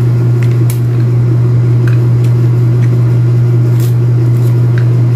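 A loud, steady low hum, with a few faint clicks and crackles from hands peeling the membrane off a pomelo segment.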